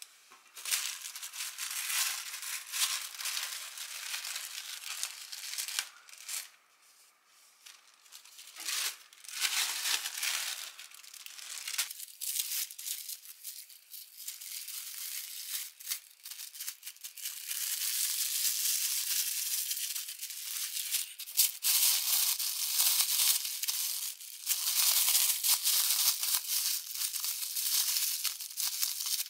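Plastic cling wrap crinkling and rustling as it is pulled up and folded tightly around a sandwich by hand, in spells with a short pause, then more continuously.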